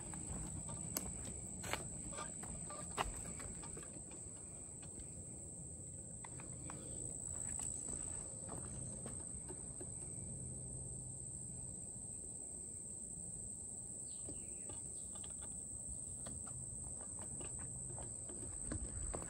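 Outdoor insect chorus: a steady, high-pitched insect drone, with a few sharp clicks in the first three seconds.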